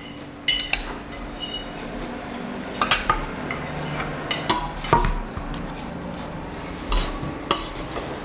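Metal cutlery clinking and scraping against dishes and pans: irregular sharp clinks, a few with a short ring, spaced a fraction of a second to a couple of seconds apart.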